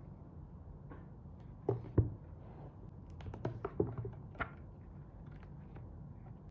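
A handful of short knocks and taps, the loudest about two seconds in and a quicker cluster a second later, over a steady low hum.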